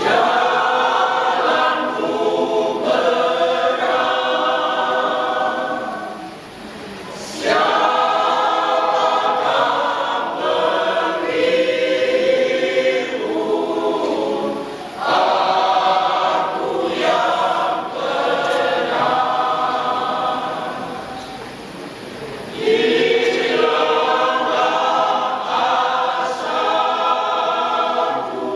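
Senior citizens' church choir singing together in long phrases, with short breaks between phrases about 7, 15 and 22 seconds in.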